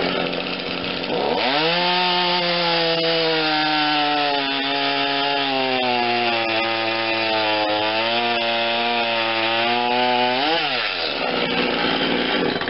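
Two-stroke chainsaw revved up from idle about a second in and held at full throttle while its freshly sharpened chain cuts through a log. The engine note sags a little under load, then rises briefly and drops back to idle near the end. The chain cuts like butter.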